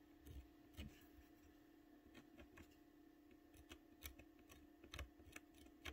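Faint, irregular scratches and ticks of an X-Acto knife blade scraping watercolor paper to lift small highlights, over a faint steady hum.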